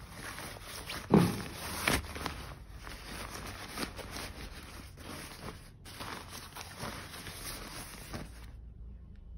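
Arc'teryx Beta Hybrid SL waterproof shell jacket being crumpled and stuffed into its own hood, its stiff fabric rustling and crinkling in a run of quick strokes. The loudest stroke comes about a second in, and the rustling stops abruptly near the end.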